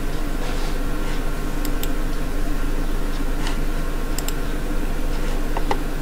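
Steady electrical hum and hiss of the recording setup, with a few faint computer-mouse clicks: two quick pairs and a single click near the end.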